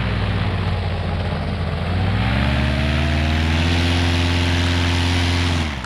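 Two-stroke paramotor engine and propeller running, revving up about two seconds in and then holding steady at high power. It cuts off suddenly near the end.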